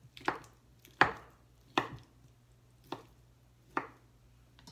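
Chef's knife cutting cooked chicken on a wooden cutting board: five separate sharp knocks of the blade striking the board, roughly one a second and unevenly spaced.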